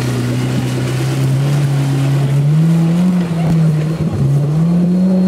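Suzuki Samurai 4x4's engine working hard under load on a muddy climb. The engine note holds steady, rises about halfway through, dips briefly, then rises again.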